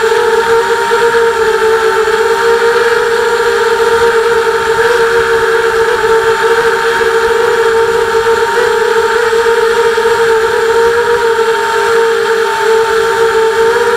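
Micro quadcopter's motors and stubby ABS plastic propellers whining steadily in flight, one loud tone with a higher overtone, the pitch wavering slightly.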